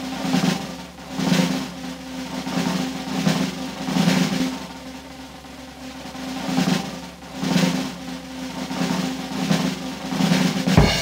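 Soundtrack music of rolling drums in recurring swells over a held low tone, ending near the end with a loud hit and a ringing chord that cuts off.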